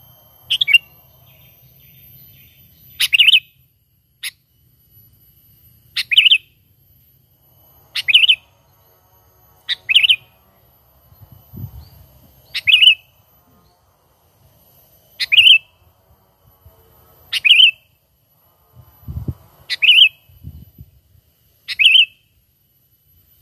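Sooty-headed bulbul (kutilang) giving short, loud call notes about every two seconds: its natural call, used as a lure. A few faint low thuds fall in the second half.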